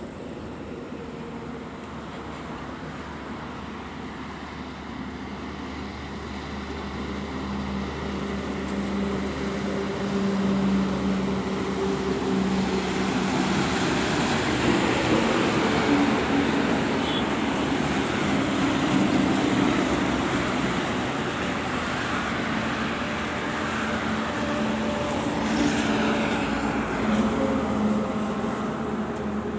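Heavy trucks running at high speed: engine drone with road and tyre noise. It grows louder over the first ten seconds or so and stays loud.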